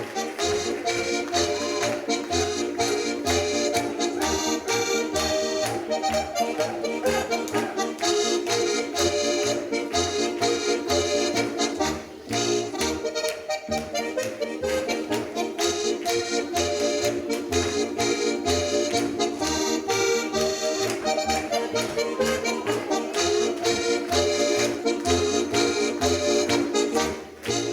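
Accordion-led Alpine folk dance music (Schuhplattler music) over a steady oom-pah bass beat, with a short break about twelve seconds in and a fade near the end.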